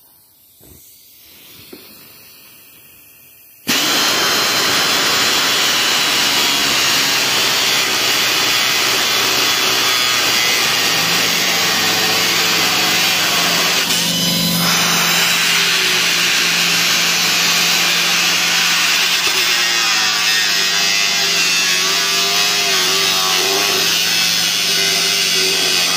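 Pneumatic cutoff tool switched on about four seconds in and running continuously: a loud, steady whine and air hiss whose pitch wavers as the load on the wheel changes.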